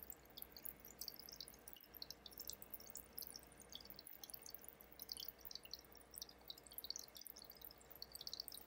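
Faint aquarium water sounds: a quick, irregular patter of tiny high ticks like fizzing bubbles, over a faint low hum.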